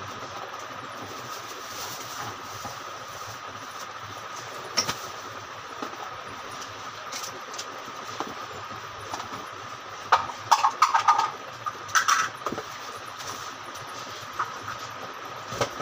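Cardboard box and the plastic bag around a mandoline slicer being handled during unpacking. Scattered knocks and crinkles, busiest around ten to twelve seconds in, over a steady background hum with a faint high whine.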